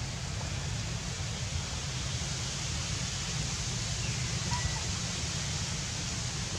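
Steady outdoor background noise: an even hiss over a low rumble, with a faint short falling whistle about four seconds in.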